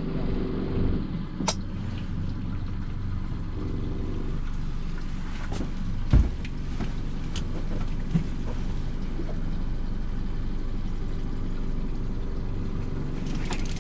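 Boat engine running steadily with a low hum, with a few short knocks on the boat, the loudest about six seconds in.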